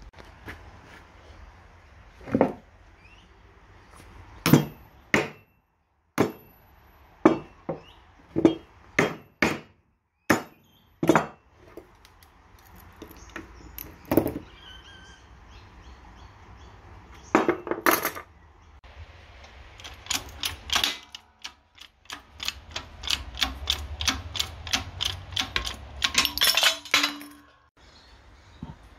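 Steel hammer blows on a punch driving the bearing cups out of a U-joint yoke. The metal strikes are spaced out at first, then come in a fast run of about three or four a second near the end.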